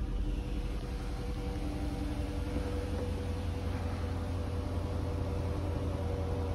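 Porsche Cayenne engine idling steadily while still cold, shortly after a cold start.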